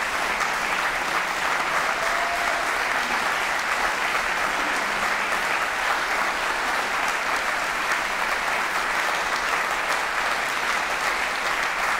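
Audience applauding: many hands clapping in a steady, dense patter that holds at an even level throughout.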